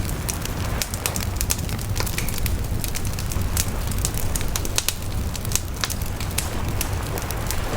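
Wood fire crackling, with frequent sharp pops and snaps of burning wood, over a steady low rush of sea waves.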